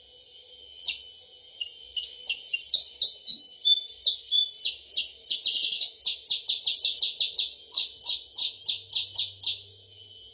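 Recorded calls of the kutilang sutra (percang), a lure call for attracting the bird. Short, sharp, high chirps over a steady hiss come sparsely at first, then quicken to about three a second in the second half.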